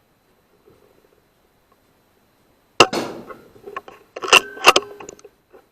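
A single shot from a Weihrauch HW100 .22 pre-charged air rifle, a sharp crack with a short tail, about three seconds in, followed about a second and a half later by two more sharp clicks close together.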